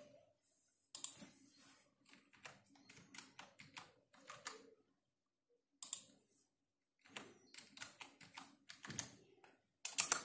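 Typing on a computer keyboard: irregular runs of keystrokes, with a few louder single clicks in between.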